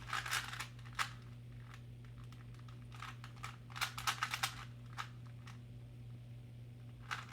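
Plastic clicking of a Rubik's cube being handled and its faces turned, in short irregular clusters with a quick run of clicks near the middle, over a faint steady hum.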